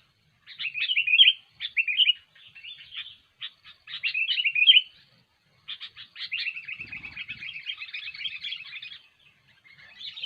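Sooty-headed bulbul (kutilang) singing vigorously: a series of short, bright, chirping phrases, then a longer rapid chattering run lasting about three seconds, then another phrase near the end.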